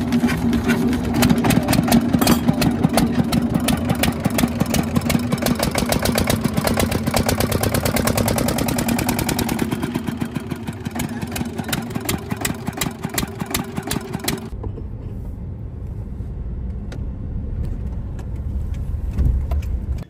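Small stationary diesel engine of a wooden river boat running with a rapid, even knocking clatter. The clatter cuts off about fourteen seconds in, leaving only a low rumble.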